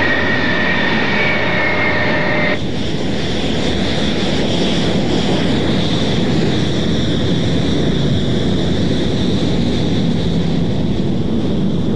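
Military jet engines running, a steady loud rush with a high whine. About two and a half seconds in, the whine drops away and a broader, steady jet rush carries on.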